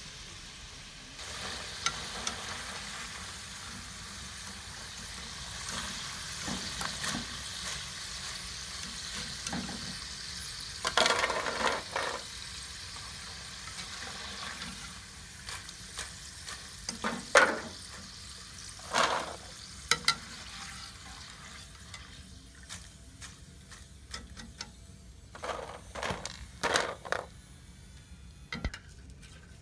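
Potato fries deep-frying in hot oil, a steady sizzle that dies down in the second half. Over it, a wire skimmer scrapes and clinks against the metal pan in short bursts as the fries are stirred and lifted out.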